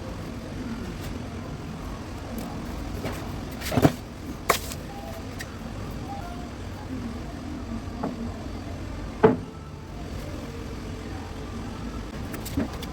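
A steady low rumble with four sharp knocks or clicks, the loudest about four seconds in and another near nine seconds.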